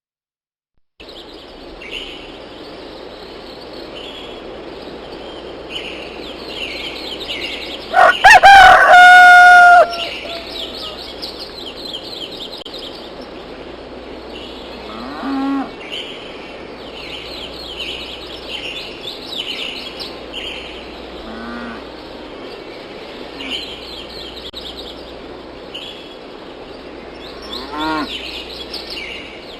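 A rooster crows once, loudly, about eight seconds in, over a steady background of many small birds chirping. Three shorter, quieter fowl calls come later.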